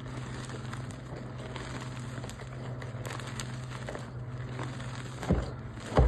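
Dyed gym chalk being handled between crushes: faint scattered crackles over a steady low hum, then two dull knocks near the end.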